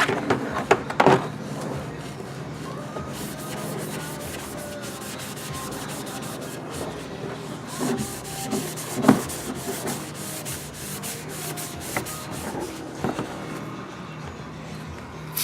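A red Scotch-Brite pad scrubbing an oxidized plastic dirt-bike fender wet with Simple Green, in rapid back-and-forth strokes, with a few knocks about a second in and about nine seconds in.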